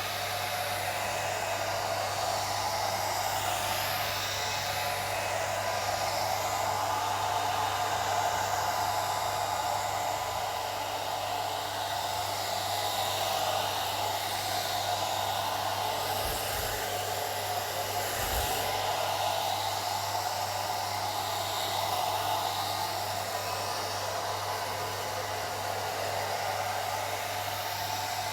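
Old hair dryer running continuously: a steady, even rush of air with a low hum underneath.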